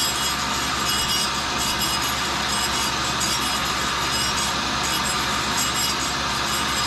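Tool and cutter grinder running, its wheel taking a light grinding cut on a small steel line boring bar that the work head spins. The grinding hiss is steady over the hum of the wheel and work head motors.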